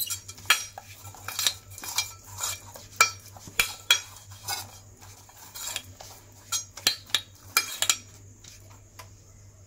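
Silicone pastry brush spreading ghee inside an aluminium cake tin, with irregular light clinks and scrapes against the metal about once or twice a second. The strokes stop about a second before the end.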